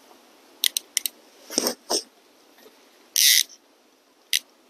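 Sharp mechanical clicks and knocks: a quick run of ticks, two heavier knocks, then a short, loud ratcheting rasp about three seconds in and a final click near the end.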